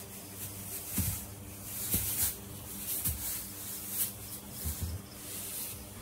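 Straw bedding rustling, with several soft dull thumps, as a newborn foal scrambles in the straw getting to its feet; a steady low hum runs underneath.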